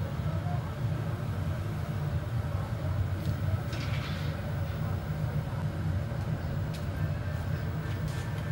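Steady low roar of a gas-fired glory hole burner, with a brief hiss about four seconds in and a few light clicks near the end.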